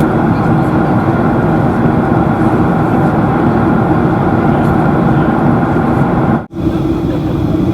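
Steady cabin noise inside a Boeing 737-300 in descent: the engines and the rush of air over the fuselage, with a constant hum. About six and a half seconds in, the sound drops out for an instant, then comes back slightly quieter.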